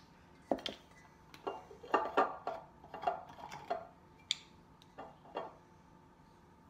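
Plastic measuring spoons on a ring clicking and clattering as they are handled, and a glass olive oil bottle clinking as it is picked up from the counter: a string of about a dozen light clicks and clinks.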